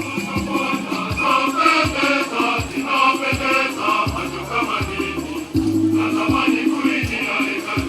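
Choir singing a hymn to a steady drum beat, with rattling shakers.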